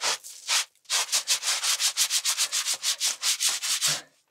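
Rapid scraping of something rubbed back and forth on a rough stone or concrete surface: two slower strokes, then a fast even run of about seven strokes a second that stops shortly before the end.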